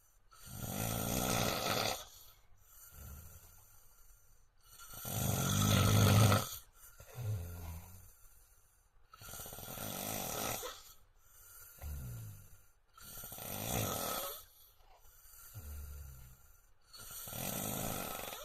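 A man snoring loudly, with a loud snore about every four seconds, five in all, and a fainter breath sound between each.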